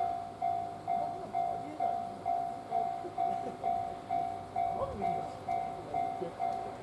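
Level-crossing alarm ringing, one clear tone pulsing evenly about twice a second, over the running noise of the 185-series train.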